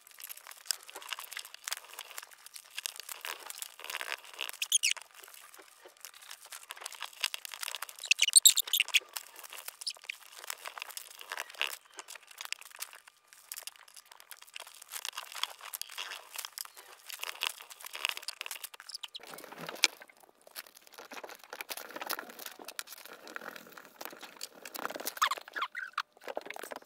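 Paper rustling and crinkling as a printed sheet is handled and pressed onto a plastic-ribbed uchiwa fan, in irregular bursts of small crackles, loudest about eight seconds in.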